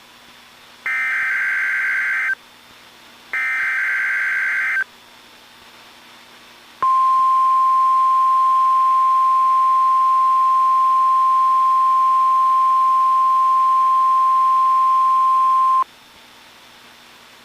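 NOAA Weather Radio emergency alert test signal: two bursts of screeching digital SAME header data, each about a second and a half, then after a two-second pause a steady 1050 Hz warning alarm tone held for about nine seconds and cut off abruptly.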